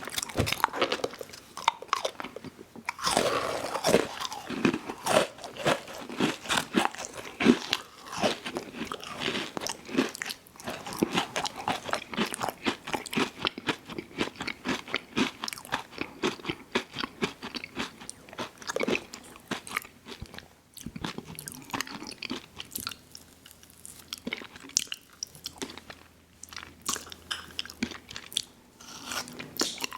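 Close-miked eating of an ice cream sandwich: bites followed by continuous crunchy, wet chewing with lip smacks, irregular and dense.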